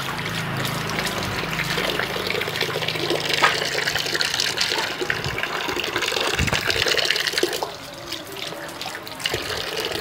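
Water running from a wall tap into a steel bucket, a steady splashing stream that drops in level about eight seconds in.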